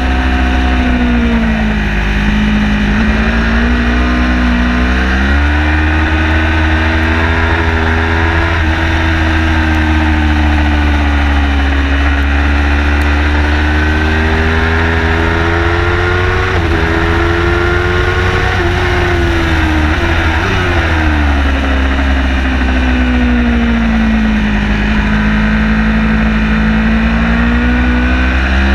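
Car engine at speed, its pitch climbing and dropping again and again as the car accelerates and slows, over a heavy steady low rumble.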